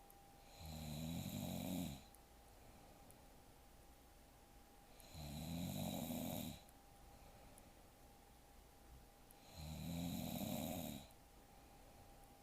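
A young woman snoring in her sleep: three slow, regular snores about four and a half seconds apart, each lasting about a second and a half.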